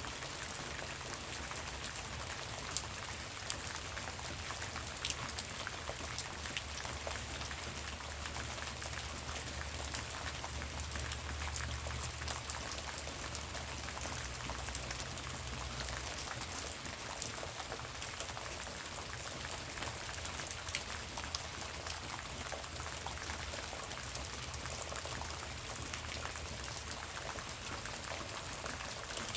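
Light rain falling: a steady hiss with many separate drop clicks, and a low rumble underneath that is stronger during the first half.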